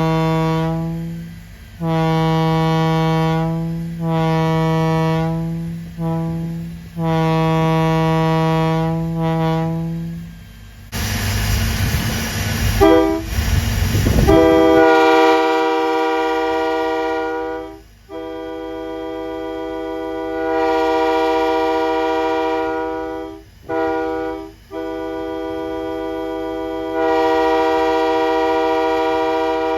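Locomotive air horns blown one after another. The first horn's multi-note chord sounds in a string of blasts, ending in a longer one. After a loud burst of rushing noise, a second horn with a higher chord and no low bottom note sounds several longer blasts.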